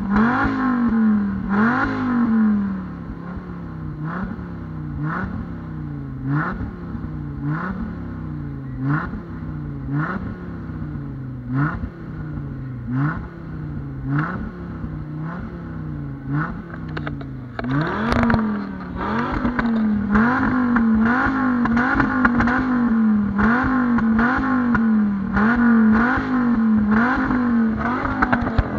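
Sports car engine heard from inside the cabin, its pitch rising and dropping back in a regular cycle about every second and a half. About 18 seconds in it gets louder and the cycle quickens to under a second as the car gets moving.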